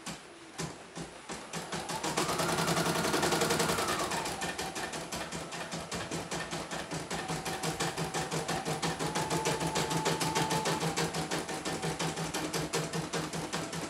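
CNY E900 portable embroidery machine stitching a test design, with a fast, even clatter of needle strokes. Twice, a motor whine rises, holds and falls away as the hoop is driven, first about two seconds in and then lower and longer in the second half. The machine is running again after parts were replaced to cure a total failure.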